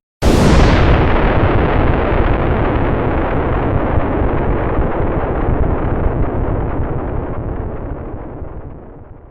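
Explosion sound effect: a sudden blast just after the start, followed by a long, deep rumble that slowly dies away over about nine seconds.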